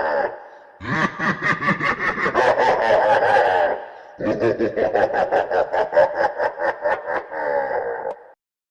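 A person laughing in long, rapid ha-ha-ha bouts, a laughter sound effect, breaking off twice for a breath and stopping abruptly near the end.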